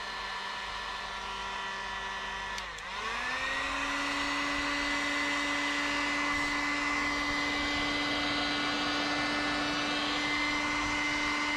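Electric heat gun running steadily with a motor hum and whine, used to shrink wrap around carbon-fibre parts. After a click about two and a half seconds in, its pitch dips briefly, then rises and settles higher and a little louder.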